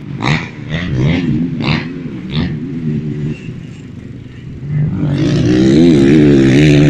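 Pit bike's small single-cylinder engine running at low revs, then revved up and held higher from about five seconds in, its pitch wavering as the throttle is worked.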